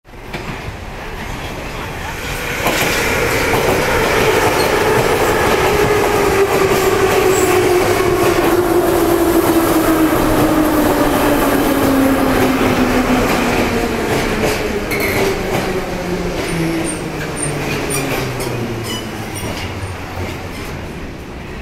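Moscow Metro Ezh3 subway train pulling into the platform and braking. The wheels rumble on the rails, which grows loud about three seconds in. The motor and gear whine falls steadily in pitch as the train slows toward a stop.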